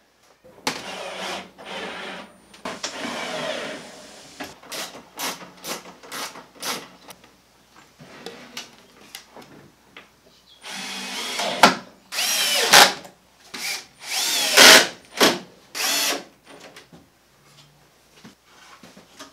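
Cordless drill driving screws into the wooden shelf bins: a series of short runs, many rising in pitch as the motor spins up. The longest and loudest runs come about two-thirds of the way through.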